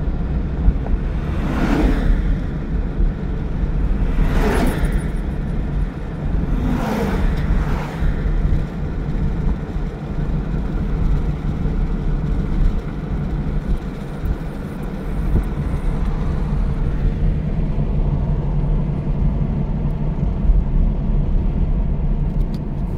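Road noise heard from inside a moving car: a steady low rumble of engine and tyres, with three short whooshes in the first eight seconds or so.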